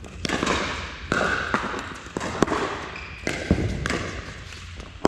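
Pickleball rally: paddles striking a hard plastic pickleball, several sharp pops in quick succession, echoing in a large indoor hall.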